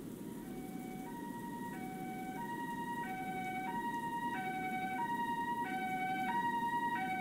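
Two-tone ambulance siren alternating between a high note and a low note about every 0.6 seconds, slowly growing louder as it approaches, over a steady low background rumble.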